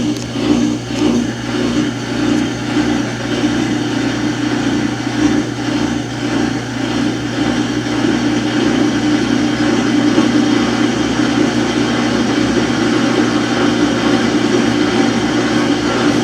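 Samsung washing machine running with a steady mechanical hum, pulsing unevenly at first and steadier and a little louder from about halfway. This is the noise of a washer on its spin cycle that will not spin.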